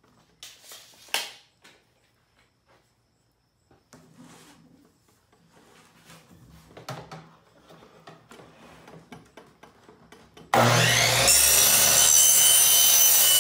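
A 3-inch PVC pipe being slid and positioned against a saw fence, with soft rubbing and light clicks and one sharper click about a second in. About ten and a half seconds in, a Delta miter saw's motor starts with a rising whine and runs loud and steady as the blade cuts through the pipe.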